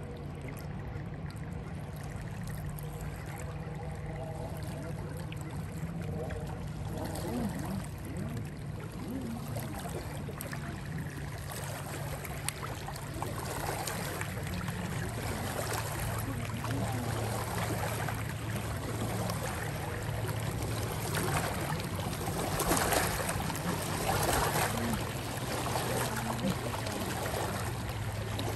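River water flowing and lapping against the bank, the splashing growing louder through the second half, over a steady low hum.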